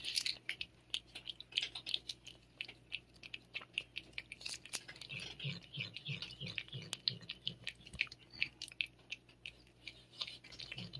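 A cat licking lickable paste treat (Ciao Churu) from a squeeze tube: quick, wet tongue clicks and smacks, several a second, with brief pauses between runs.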